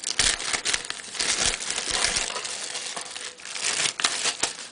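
Thin clear plastic bag crinkling and rustling as hands open and handle it, a dense run of small crackles.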